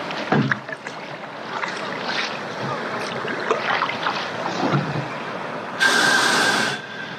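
Flowing creek water splashing and lapping against a plastic kayak. About six seconds in there is a loud scrape lasting about a second as the hull runs up onto the sandy bank.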